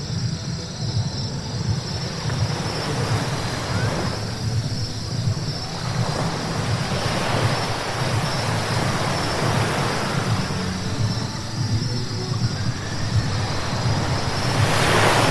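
Steady road rumble of a car driving on wet roads, with the hiss of tyres on wet asphalt swelling several times as vehicles pass, the loudest swell near the end.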